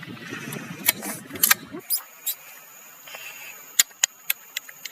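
Scattered sharp clicks and ticks, about nine in all and bunched toward the end. About two seconds in, a low rumble stops suddenly and a steady high-pitched whine sets in.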